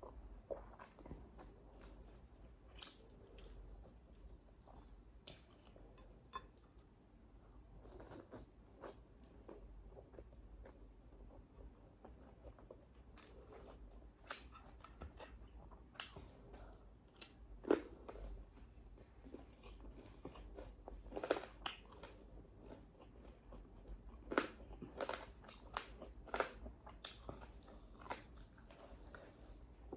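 Close-up mukbang eating sounds: a person chewing and biting crunchy food, with irregular crunches and mouth clicks.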